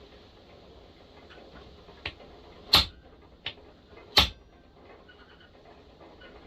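Four sharp taps on a thread-insert setting tool seated in a chainsaw cylinder's spark plug hole, flaring the knurled insert out into the freshly cut threads; the second and fourth taps are the loudest.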